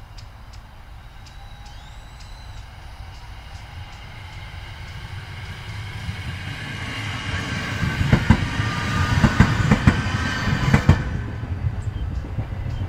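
JR West 521 series electric train passing close by, growing louder as it nears. About eight seconds in comes a quick clatter of wheels over rail joints under a high whine, which stops suddenly near the end as the train moves away.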